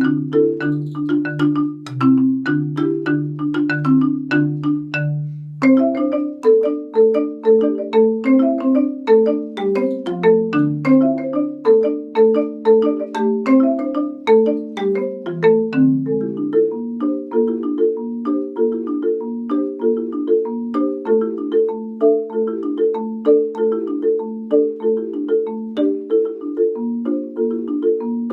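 Solo marimba played with four mallets: a fast, steady stream of repeated struck notes in the middle register, with low bass notes sounding under them through the first half before dropping out.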